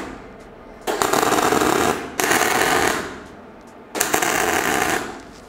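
MIG welding arc crackling in three separate bursts of about a second each, welding hinges onto a steel tube frame.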